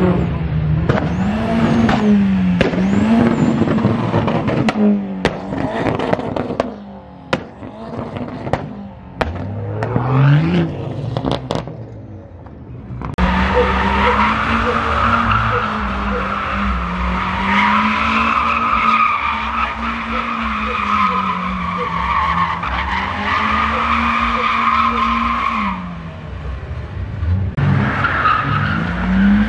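Rear-wheel-drive cars drifting, a BMW 3 Series and then a Mazda MX-5: engines revving up and down again and again as the cars are held sideways, with tyres skidding and squealing. Sharp cracks are scattered through the first half. From about halfway a loud, steady tyre squeal runs under the rising and falling engine note.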